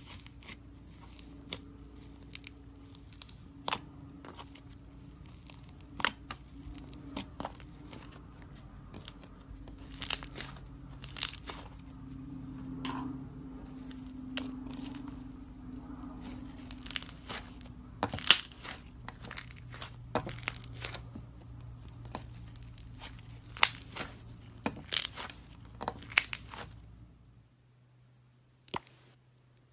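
Thick white slime being pressed and poked by fingers, giving irregular sharp crackles and pops, over a steady low hum. Near the end it goes almost quiet, with one more click.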